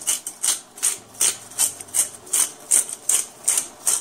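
Black pepper being ground in a handheld glass pepper grinder: the twisting grinder head makes a steady run of short rasps, about three a second.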